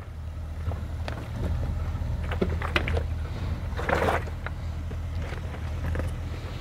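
Range Rover Sport crawling slowly over loose rocks: a steady low engine rumble, with scattered clicks and crunches of stones and a louder rasping scrape about four seconds in.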